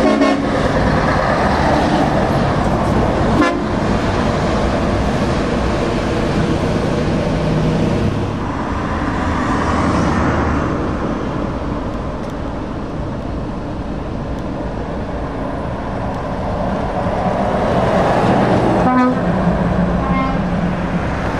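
Heavy trucks driving past at close range, engines and tyres running by. Truck air horns sound briefly right at the start as a Scania passes, and again in short blasts about 19 to 20 seconds in as a Volvo FH goes by.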